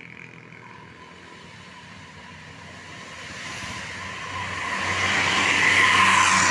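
A tour bus approaching along the road, its engine and tyre noise growing steadily louder until it is close by near the end.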